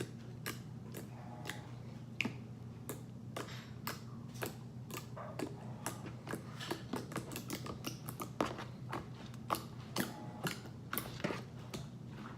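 Jiggly slime being squeezed and poked, giving off an irregular run of small wet clicks and pops, several a second.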